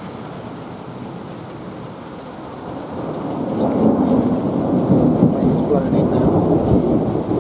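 Thunder rumbling after a lightning flash, swelling about three seconds in and staying loud, over the steady hiss of rain.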